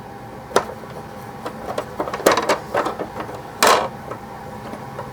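Hard plastic toy parts handled and fitted together: several sharp clicks and taps, with a louder short scrape a little past the middle.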